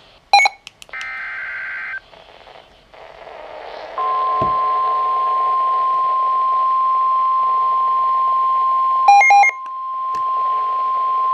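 NOAA Weather Radio alert sequence. A SAME header data burst, a rasping two-tone warble, plays twice, with a few short electronic beeps between the bursts. About four seconds in, the steady 1050 Hz warning alarm tone starts and holds, broken near nine seconds by another quick set of beeps.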